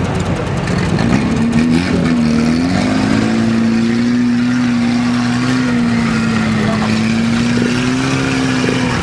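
Jeep engine under load as the vehicle climbs a steep, rutted dirt trail; its note rises a second or two in, then holds steady.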